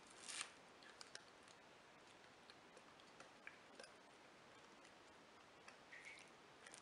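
Near silence with faint, scattered small clicks and scratches, one a little louder about half a second in, as fingers press and pry the plastic front cover of a GoPro HERO 3+ Black off its side clips.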